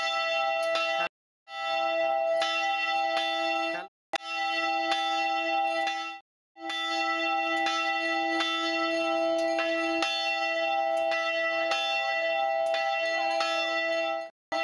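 Large bronze temple bell (kaṇṭāmaṇi) cast by the Olsen Nauen bell foundry, struck over and over, its low hum and many higher tones ringing on between strikes. The ringing cuts off suddenly to silence three times: about a second in, near four seconds, and past six seconds.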